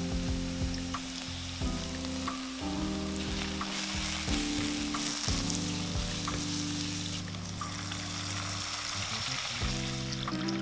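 Food frying and sizzling in a hot pan with a steady crackle, under background music of sustained chords that change every second or two.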